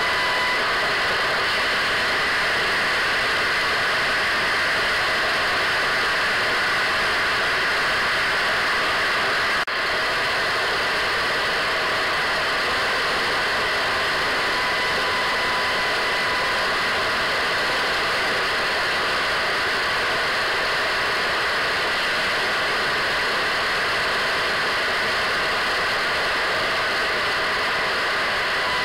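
Radio static: the steady hiss of an untuned radio, with faint steady whistle tones underneath and a brief dropout about ten seconds in.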